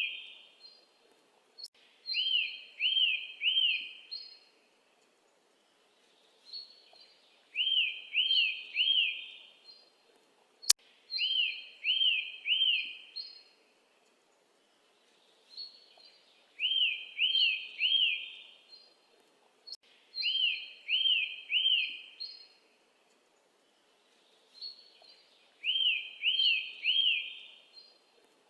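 A bird calling: a phrase of three quick, arched chirping notes, repeated about every four seconds in an even pattern. A single sharp click about ten seconds in.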